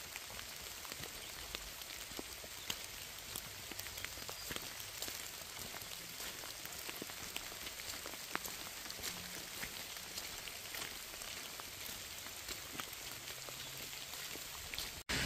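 Steady rain falling, with many separate drops ticking irregularly over an even hiss.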